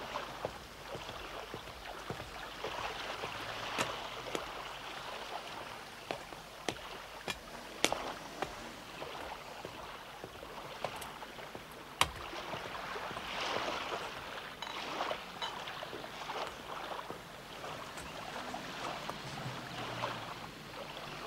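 River water lapping and washing steadily against the hull of a moored barge, with a few sharp clicks now and then.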